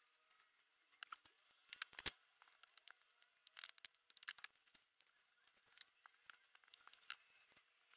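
Faint, scattered crinkles and clicks of hands handling a large plastic bottle and pressing a piece of cloth onto it, with one sharper click about two seconds in.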